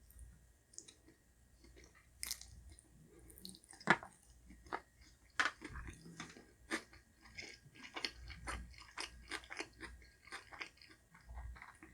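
A person chewing food close to the microphone: faint, irregular wet mouth clicks and smacks, a few each second.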